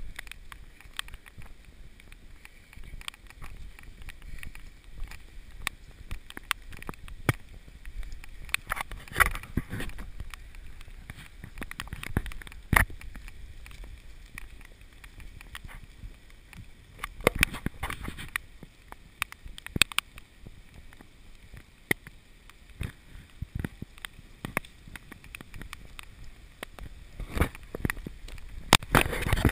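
Handling noise of a body-worn action camera moving through the woods: a low rumble with scattered, irregular knocks and clicks, loudest in a cluster near the end.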